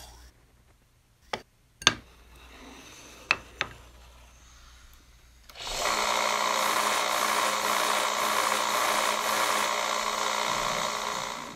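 A few sharp clicks, then a band saw starts running and cutting a block of hardwood, a loud steady whirr from about halfway through that stops near the end.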